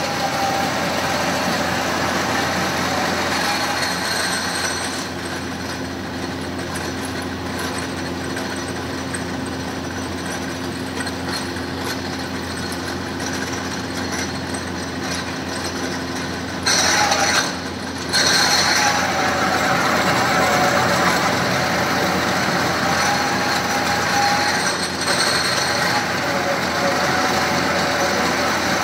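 Pillar drill press running steadily while its bit is fed down into a metal part held in a vise, a constant motor hum with the cutting noise over it. About two-thirds of the way through there is a brief louder burst, then the steady running resumes a little louder.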